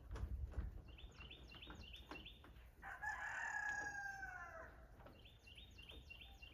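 A rooster crows once, a call of nearly two seconds in the middle, falling in pitch at the end. Before and after it a small bird chirps in quick runs of short repeated notes, with a few faint clicks between.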